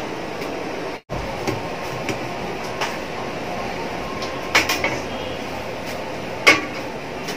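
Stainless-steel kitchenware clinking and knocking: a slotted ladle and colander against steel pots, a few scattered clinks, a quick cluster of knocks about four and a half seconds in and a sharper clink about six and a half seconds in, over a steady background hiss.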